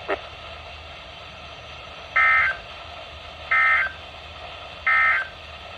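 Three short identical bursts of Emergency Alert System SAME data tones, a two-tone digital buzz about a second and a half apart. Each burst is brief, which marks this as the end-of-message code closing the broadcast tornado warning.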